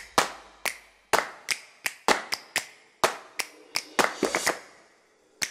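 Clapping percussion of intro music, sharp claps at about two to three a second with short echoing tails, with no voice or melody over them. They thin out to a brief gap near the end.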